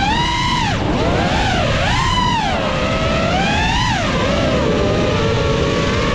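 An FPV quadcopter's T-motor Slatts 2306.3 1700kv brushless motors and propellers whining, the pitch swooping up and down with the throttle: a sharp drop about a second in, several rises and falls, then a steadier lower pitch for the last two seconds. A low rush of wind noise runs underneath.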